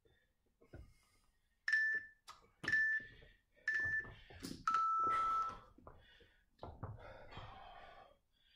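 Gym interval timer beeping the countdown: three short high beeps about a second apart, then one longer, lower beep that signals the start of the next work interval. Knocks and clatter of gym equipment follow as a loaded barbell is lifted.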